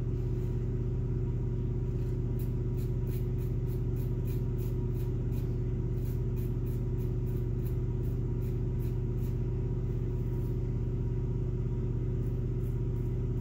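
Wolfman WR-2 solid-bar double-edge safety razor scraping stubble under the nose against the grain, in quick short strokes heard as a rapid series of faint crisp scrapes about four a second, with a pause before a few more near the end. A steady low hum underlies it and is the loudest sound.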